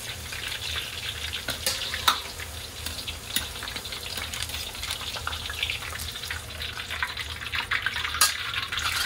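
Eggplant pieces deep-frying in hot oil in a wok: a steady crackling sizzle. A few sharp metal clinks come through as the ladle and perforated skimmer knock against the wok while the pieces are scooped out.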